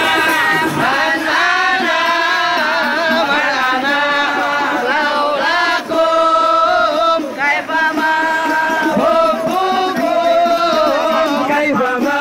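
Male voices singing an Arabic Islamic devotional song (qasida).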